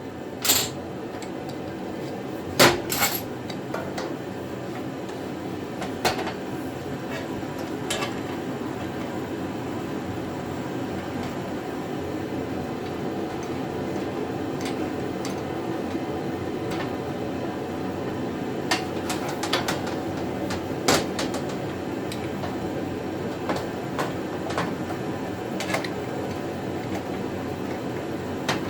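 Metal-on-metal clinks and knocks of a hand ratchet, bolts and sheet-steel welding cart parts being fitted together, a dozen or so scattered strikes with the sharpest ones in the first few seconds, over a steady background hum.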